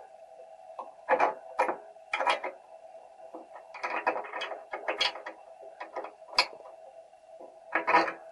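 Irregular knocks and clatters of metal parts being handled during assembly of a fish feed pelleting machine, the loudest a little after a second in and near the end, over a steady hum.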